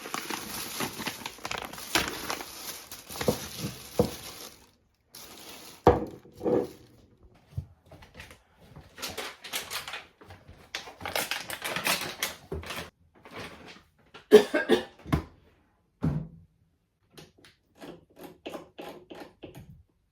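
Household clatter: a steady hiss for the first four or so seconds, then irregular clinks and knocks of dishes and utensils being handled, with louder knocks about six and fourteen seconds in.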